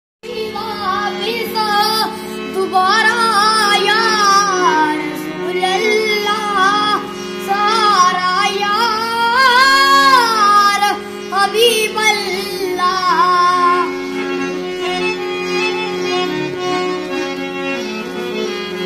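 A high voice singing a devotional naat in a wavering, ornamented melody over a steady held drone; the sung line fades out about three-quarters of the way through, leaving the drone.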